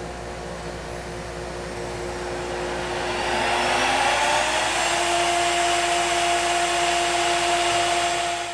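CNC router spindle spinning up: from about three seconds in its whine climbs in pitch and grows louder under a rushing hiss, then runs steadily at speed.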